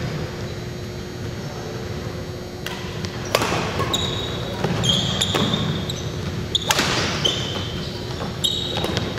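Badminton rally: several sharp racket strikes on the shuttlecock a second or two apart, with sneakers squeaking briefly on the hardwood court between shots, all echoing in a large gym hall.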